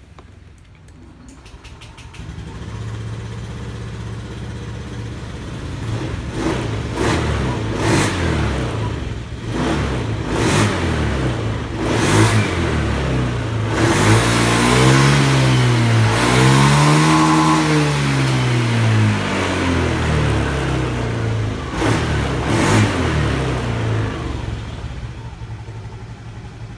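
Honda Beat FI scooter's single-cylinder engine running and being revved: several quick throttle blips, then a longer rev that climbs and falls back around the middle before settling toward idle. It answers the throttle promptly with no lag after an ECU reset, which the mechanic calls back to normal.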